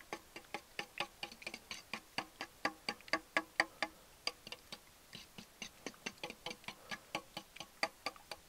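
Metal fork whisking a thin batter of milk, eggs and melted butter in a stainless steel bowl: rapid light clicking of the tines against the bowl, about five strokes a second.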